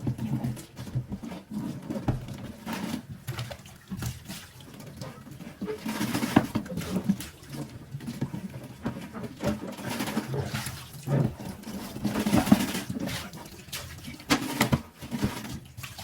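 Handling dishes and utensils at a kitchen sink: irregular knocks and clatter with splashes and gushes of water.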